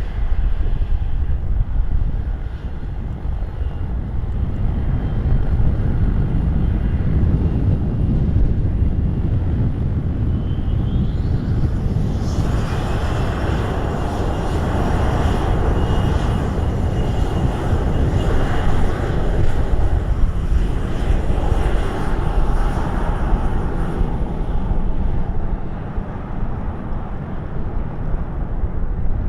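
Jet airliner passing close by: a whine rises, then its engine noise comes in strongly about twelve seconds in and fades away some twelve seconds later. Strong wind rumbles on the microphone throughout.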